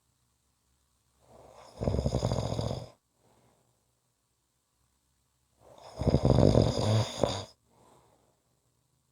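A person snoring: two long snores about four seconds apart, each with a fast flutter and lasting about a second and a half, with quiet pauses between breaths.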